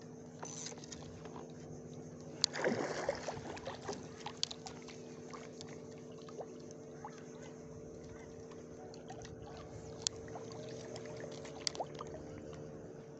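Steady hum of a boat engine running, holding a constant pitch throughout. Over it come scattered sharp clicks and a short noisy rush about two and a half seconds in.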